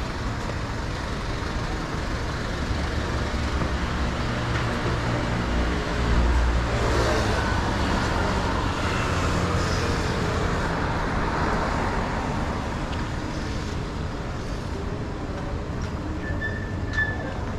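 Street traffic: a motor vehicle passes close, its engine and tyres swelling about six seconds in and fading away over the following several seconds. A short high beep sounds near the end.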